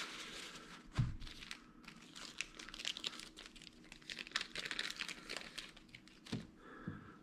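Crinkling and rustling of a small packet being handled and opened to take out a replacement fishing-reel bearing, with a soft knock about a second in and another near the end.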